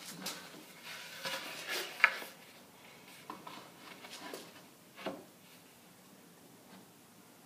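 Melamine-faced particle board panel being set down on a table saw top and shuffled into place against the fence: rubbing and scraping with a sharp knock about two seconds in and another knock about five seconds in, then only light handling.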